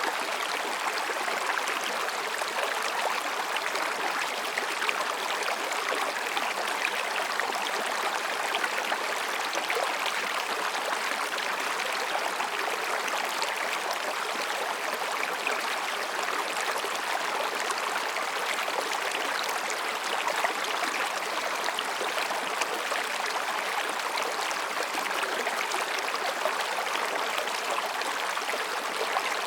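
Mountain stream babbling over and between rocks: a steady rush of flowing water with a light splashing texture.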